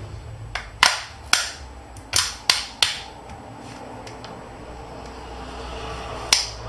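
Sharp plastic clicks and snaps as a plastic opening pick pries along the edge of a Samsung Galaxy Tab 3 Lite 7.0's back cover and the cover's clips snap loose. About six come in quick succession over the first three seconds, then one more near the end.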